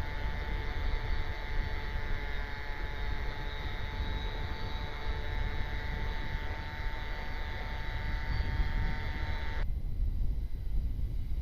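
Electric motor and propeller of a radio-controlled model Cessna TTX airplane whining steadily in flight, the whine stopping abruptly near the end, over a constant low rumble.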